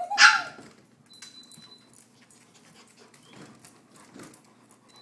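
A dog gives one short, loud bark right at the start, followed by faint scattered clicks and scuffles as the dogs move about on the tile floor.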